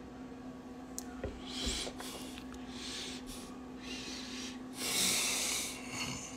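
A person breathing close to the microphone, with a few small clicks early on and a louder breathy rush about five seconds in, over a steady low hum.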